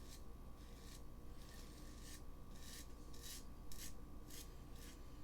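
A cheap Assured for Men razor scraping stubble through lather in short, quick strokes, about two a second, with very light pressure.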